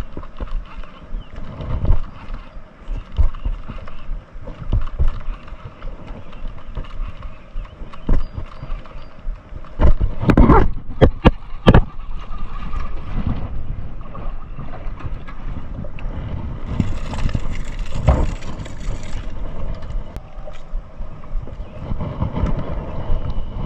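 Handling noises on a plastic kayak: knocks and rubbing of a rod, reel and hands, with water lapping at the hull and wind on the microphone. A sharp cluster of knocks and clicks comes about ten seconds in, and a brief hiss follows a few seconds later.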